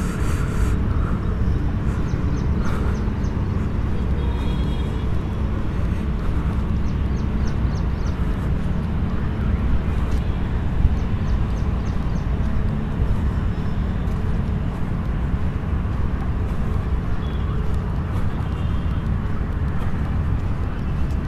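Outdoor field recording dominated by a steady low rumble, with faint high chirps now and then.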